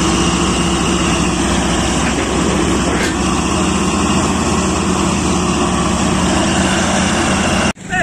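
New Holland crawler dozer's diesel engine idling steadily close by. It drops out for an instant near the end.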